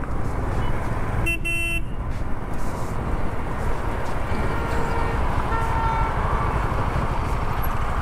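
Steady rumble of motorcycle riding and road traffic. A vehicle horn toots once, briefly, about a second and a half in, and fainter horn beeps follow around five to six seconds.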